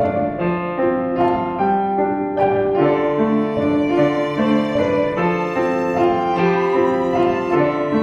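Instrumental background music: piano and strings playing a melody of held notes.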